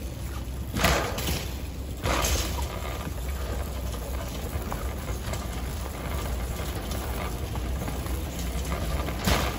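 Wind rumbling on a handheld phone's microphone, with louder rushing gusts about a second in, at about two seconds and again near the end.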